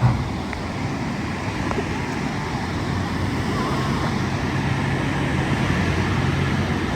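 Steady rushing noise of moving water and wind on the microphone, with a low hum underneath.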